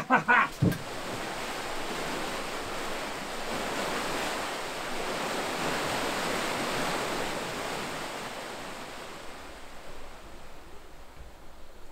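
A brief voice at the very start, then water rushing and churning as it pours through the open paddles of a canal lock. It is a steady, even rush that fades away near the end.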